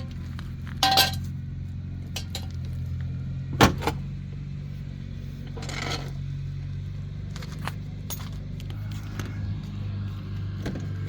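Mercedes-Benz CLA 250 running at a steady idle with a low hum, with a few sharp clicks and clinks over it, the loudest about three and a half seconds in.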